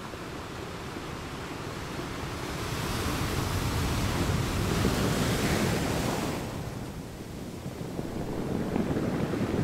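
Ocean surf: a steady rush of waves that swells to a peak in the middle, eases off, then builds again near the end.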